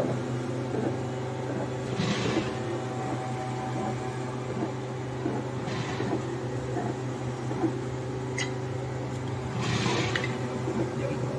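DTF film printer with its automatic roll unwinder running: a steady low machine hum, with a brief swish at about two, six and ten seconds in and a single click in between.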